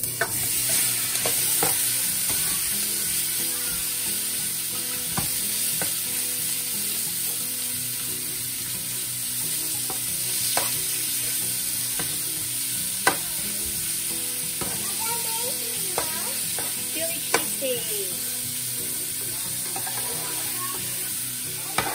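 Thin-sliced ribeye steak sizzling in hot oil in a nonstick pan. The sizzle starts suddenly as the meat is tipped in and then holds steady, with a few sharp clicks and scrapes from a plastic utensil stirring the meat.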